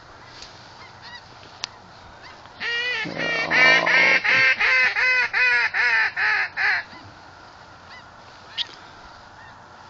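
A loud, close series of about a dozen goose honks, about three a second, starting a few seconds in and stopping after about four seconds, with faint distant honks before and after.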